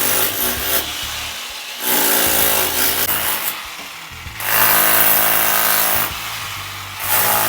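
A power tool running in four loud bursts of a second or more each, with background music.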